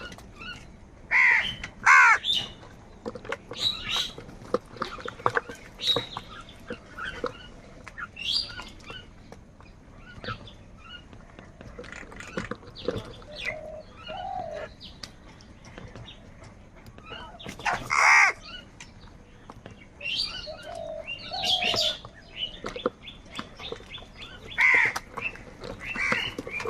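Several crows cawing: harsh calls at irregular intervals, some overlapping. The loudest calls come about a second in, near the middle and near the end.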